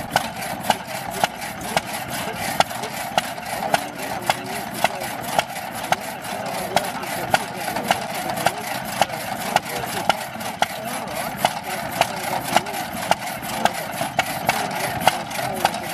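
Small stationary engine on a vintage drag saw running, with sharp exhaust pops about twice a second over a steady mechanical clatter.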